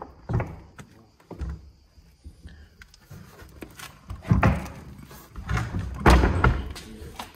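Old wooden plank door being pushed open by hand, knocking and thudding against its frame in several dull knocks as it gives, the heaviest near the middle and toward the end.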